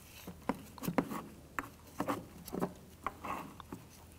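Negative battery terminal clamp and its cable being wiggled and pulled off the battery post by gloved hands: a string of light, irregular clicks and knocks.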